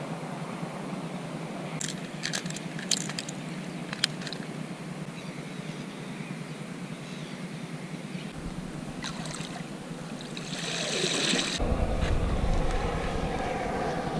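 Steady low background hum with a few light clicks about two to four seconds in; about ten seconds in, water splashes and sloshes around a perforated live-bait bucket, getting louder toward the end.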